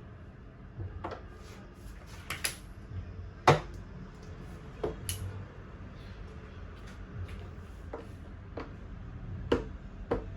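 Plastic parts of a baby high chair being handled and fitted together: irregular knocks and clicks, the loudest about three and a half seconds in.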